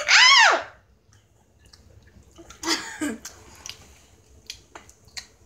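A girl's short high-pitched squeal, rising then falling in pitch, as she reacts to the sourness of a Warheads candy. Then two brief vocal sounds about two and a half seconds in, and a few faint clicks near the end.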